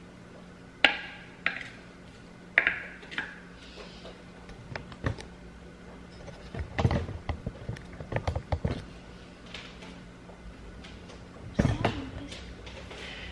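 Wooden chopsticks clicking sharply against a ceramic plate while tossing a salad, four short ringing taps in the first few seconds. Then a run of duller knocks and bumps, and one more near the end.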